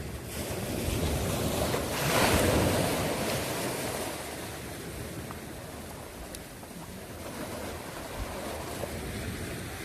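Sea waves washing and surging, with wind on the microphone; a wave swells louder about two seconds in.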